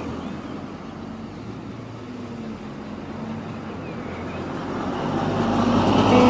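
Street traffic noise, a steady rumble and hiss that swells louder over the last couple of seconds as a vehicle comes close.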